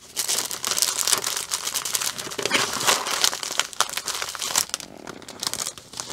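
Clear plastic packaging and paper sheets of a diamond painting kit crinkling and rustling as they are handled and folded: a dense run of crackles with a short lull about five seconds in.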